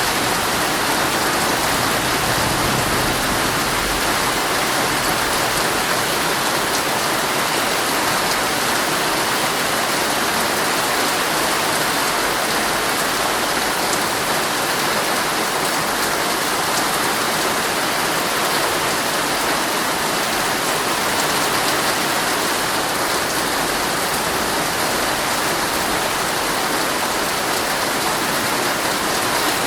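Heavy rain falling steadily on a tent's fabric, heard from inside the tent as a dense, even patter.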